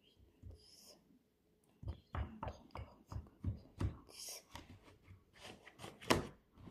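Hands handling a hard-shell diamond-painting storage case, making a run of small, irregular taps and clicks, the loudest about six seconds in.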